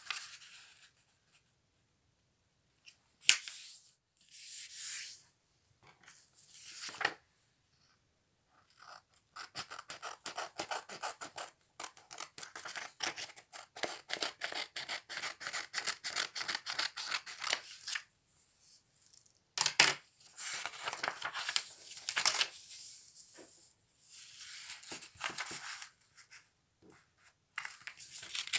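Small scissors cutting through a sheet of paper in a long run of quick snips through the middle. Before and after come the rustle, scrape and crease of the paper being folded and smoothed flat by hand on a wooden table.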